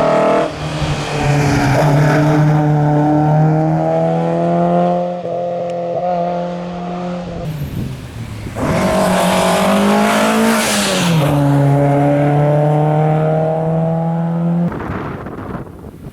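Historic rally car's engine at full throttle, revs held high and climbing slowly, with a dip and a loud rush of noise around the middle as the car goes by, then steady high revs that cut off suddenly near the end.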